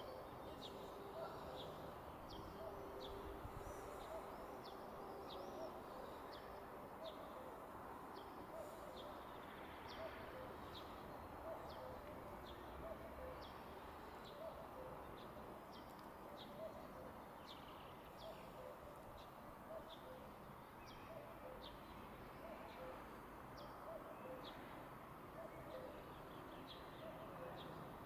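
Small birds chirping in short, high, scattered notes, with a low repeated cooing like a pigeon's underneath.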